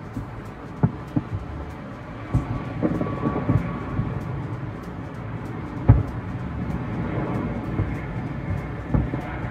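Distant fireworks booming over the bay: a continuous low rumble of overlapping muffled thumps, the loudest about six seconds in.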